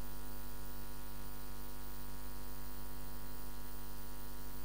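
Steady electrical mains hum, a stack of evenly spaced tones with a faint hiss above, picked up in the screen recording's microphone line.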